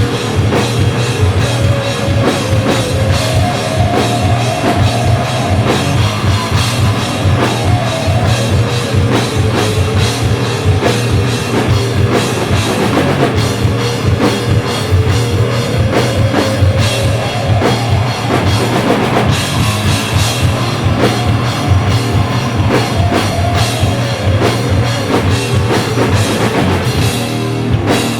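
A stoner metal band playing live: distorted electric guitars and bass over a driving drum kit, loud and continuous.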